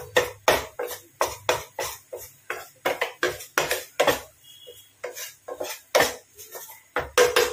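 A white spatula scraping and knocking against a non-stick pan in quick, regular strokes, about three or four a second, while butter and flour are stirred continuously into a roux.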